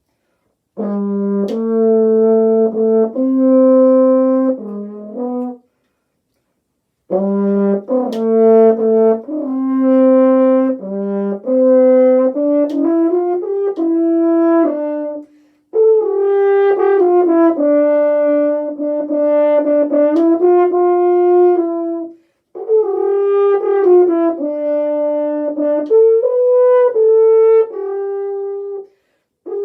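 Solo French horn playing an excerpt: sustained and moving notes in four phrases, with a silence of about a second and a half after the first phrase and short breaths between the others.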